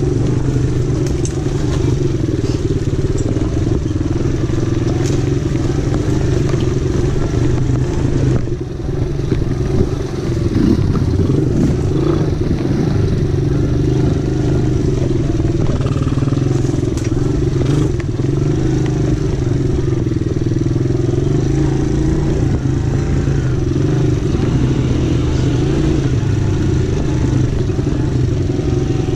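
Small ATV engine running at a steady, even speed while riding over a rough dirt track, with occasional knocks and rattles from the machine over bumps. The engine eases off briefly about eight and a half seconds in, then picks up again.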